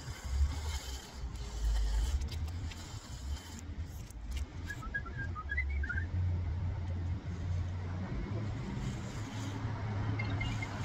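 Outdoor street ambience: an uneven low rumble, with a few faint high chirps around the middle and again near the end.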